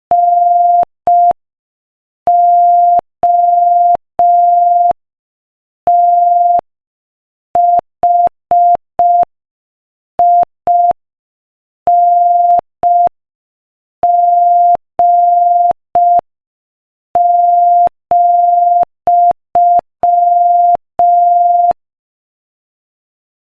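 Morse code played as a single steady beep, keyed on and off in short dots and long dashes at a slow 5 words-per-minute practice speed. The beeping stops near the end.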